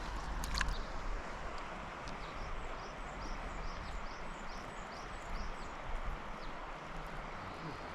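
Steady rushing noise of flowing river water, with a bird giving a run of short, high, downward-slurred notes about twice a second in the middle.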